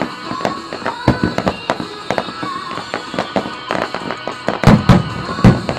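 Fireworks starmine: a rapid string of cracks and pops from bursting shells, with several heavy booms a little before the end the loudest, and music playing underneath.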